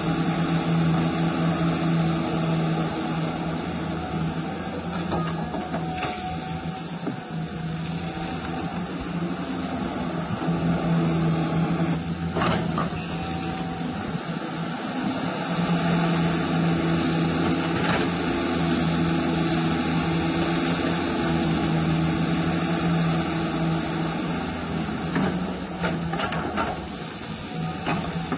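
RC hydraulic excavator (scale CAT 336) running its hydraulic pump: a steady pitched hum that swells and eases as the arm digs, lifts and swings. There are a couple of sharp clicks partway through.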